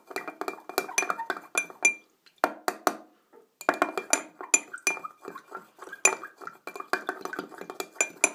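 Metal knife tapping and scraping against the rim and inside of a drinking glass, shaking off a sticky spread that refuses to come off the blade. Quick runs of clinks, each with a short glassy ring, with a brief pause about three seconds in.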